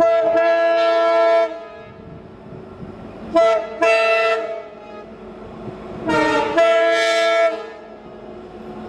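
Indian Railways locomotive air horn sounding three times, each time a short toot followed by a longer blast of a many-toned chord, over the lower running noise of the approaching train.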